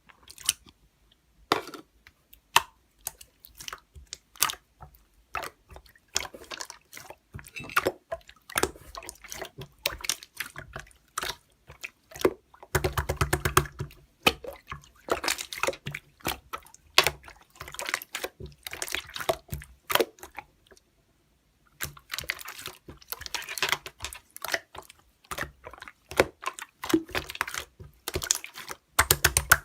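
A dense, irregular run of small clicks and taps, busiest around the middle and again in the last third, with a short pause before that last stretch.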